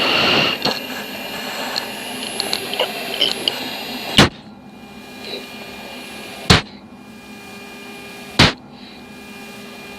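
F-16 cockpit hum from the jet engine and air system, with steady whining tones. Over it come the pilot's short, sharp breaths into his oxygen mask about every two seconds, the anti-G straining breathing of a G-awareness turn.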